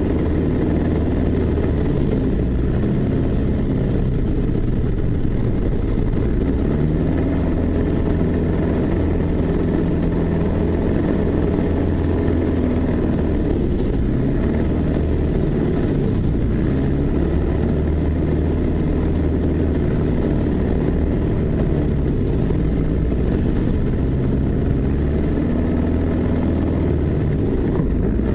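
1946 Piper J-3 Cub's engine and propeller running steadily, heard close up from the cockpit, with small shifts in pitch.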